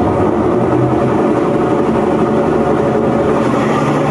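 Brastemp washing machine in its spin cycle, making a loud, steady mechanical noise. It is the sign of a mechanical fault in the machine, a classic and common one according to the repairman.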